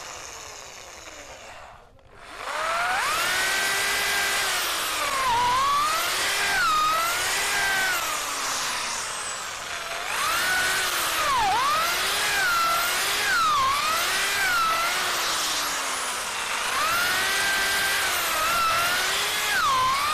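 Bosch GSB 16RE corded drill boring into a mango tree trunk with a 10 mm steel twist bit. It starts about two seconds in, and its motor whine repeatedly dips in pitch as the bit bites into the wood, then recovers.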